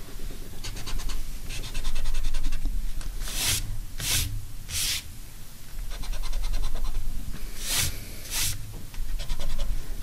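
Eraser rubbing pencil marks off watercolor paper in quick back-and-forth strokes, in two bouts, with several short, louder swishes between them.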